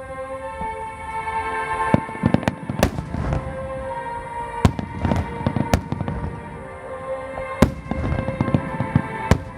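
Aerial fireworks bursting: a string of sharp, separate bangs a second or two apart, over sustained music.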